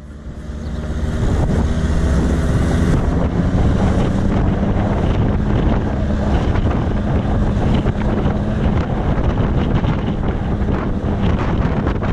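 Wind buffeting the microphone of a camera mounted on the outside of a moving off-road vehicle, over the steady hum of its engine and tyres on the road. It fades up over the first second or so.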